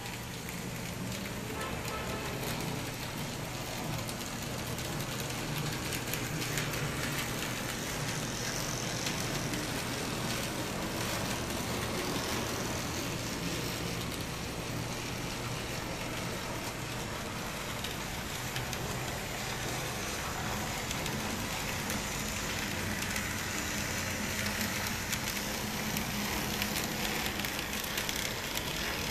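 N-scale model trams running on track: a steady whir of small electric motors and wheels rolling on the rails, with faint ticks throughout.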